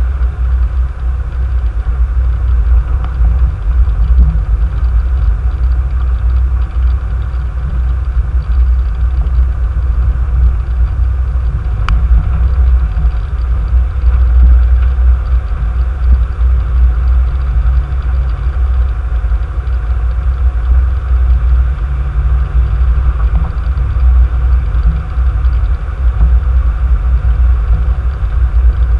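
Car driving, heard from a dash cam inside the cabin: a steady, loud, low engine and road rumble, with one faint click about twelve seconds in.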